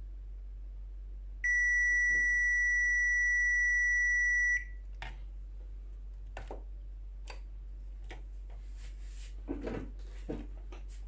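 Digital multimeter's continuity buzzer giving one steady, high-pitched beep of about three seconds, starting about a second and a half in: the probes are across a low-resistance path on the laptop motherboard. Light clicks and taps of the probe tips on the board follow.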